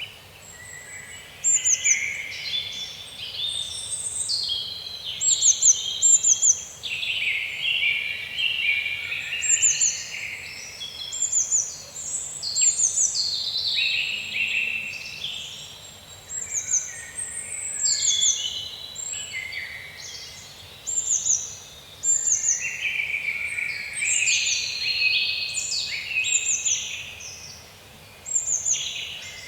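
Songbirds singing, with overlapping, repeated phrases of high, quickly falling chirps and trills.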